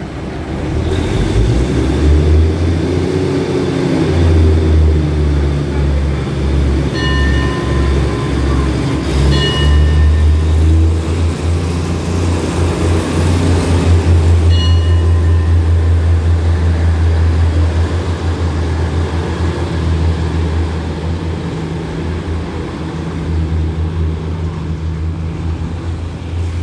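Diesel railcar's engines running hard as the train pulls out of the platform: a deep hum that pulses unevenly at first, holds steady and loud through the middle, then eases off as the train leaves. Short high beeps sound three times along the way.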